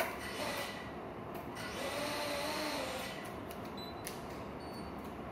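A sharp click, then about two seconds in a small FPV quadcopter's motors, fitted with broken propellers, spin up briefly with a whine that rises and falls in pitch for about a second.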